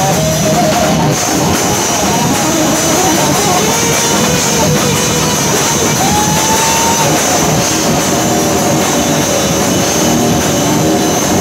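Live rock band playing loud and without a break: amplified electric guitar and bass guitar over a drum kit.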